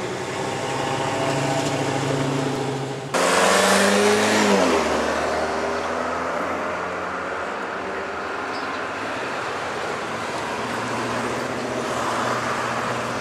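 Diesel freight locomotives running in the rail yard. The engine note grows near the end as NS SD40-2 6107 and a second unit approach. About three seconds in the sound jumps to a louder rush whose pitch falls over the next second or so, then settles to a steady rumble.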